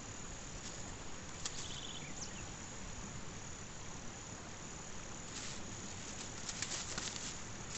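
Steady high-pitched chirring of insects, with a short chirp about a second and a half in and a run of crackling clicks toward the end.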